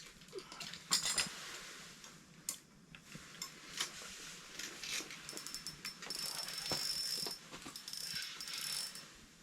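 Rapid mechanical clicking of fishing gear, like a reel's ratchet, with a thin high metallic ringing in stretches during the second half.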